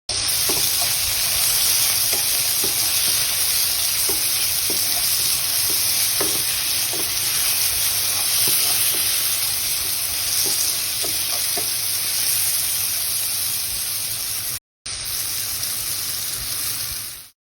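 Vegetables sizzling as they are stir-fried in a hot pan: a steady hiss with faint scattered ticks. The sound cuts out for a moment near the end, then sizzles on.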